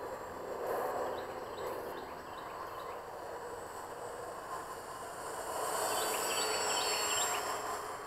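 Faint open-air ambience: a steady low rush with a few faint short high chirps, swelling a little louder about five and a half seconds in.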